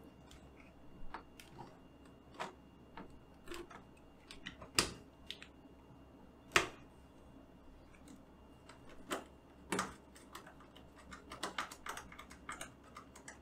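Irregular clicks, taps and knocks of computer parts being handled and pressed into place inside a small metal-and-plastic mini-ITX PC case, with two louder knocks about 5 and 6.5 seconds in.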